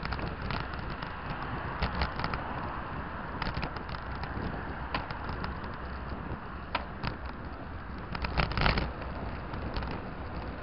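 Bicycle riding along a paved cycle path: a steady rush of wind and tyre noise with frequent rattles and knocks as the bike jolts over bumps, the loudest cluster about eight and a half seconds in.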